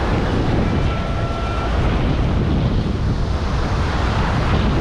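Wind buffeting the microphone over a steady wash of surf, with a faint short tone about a second in.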